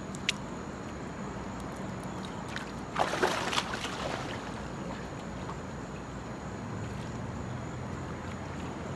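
Pool water lapping and sloshing right by the microphone, with a short burst of splashing about three seconds in as a person gets into the pool. A low steady hum runs underneath.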